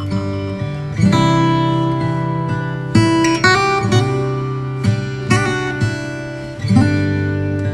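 Background music: acoustic guitar strumming chords, a new chord struck every second or two.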